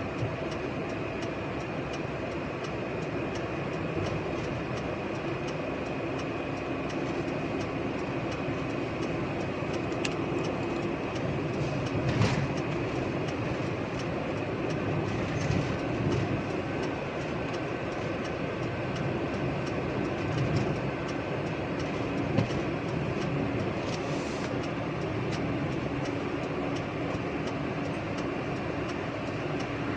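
Steady engine and road noise of a vehicle driving along, heard from on board, with a couple of brief knocks from bumps in the road.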